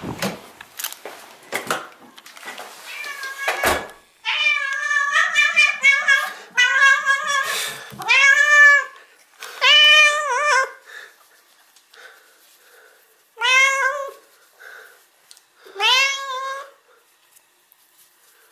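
Black-and-white domestic cat meowing: a run of drawn-out meows from about four seconds in, then three separate meows a few seconds apart, each rising and then falling in pitch. Handling clicks and knocks come before the meows.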